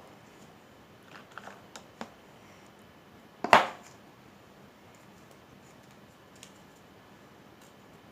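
Small objects handled by hand: a few light clicks and taps, then one loud, short rustle about three and a half seconds in, and a faint tick later.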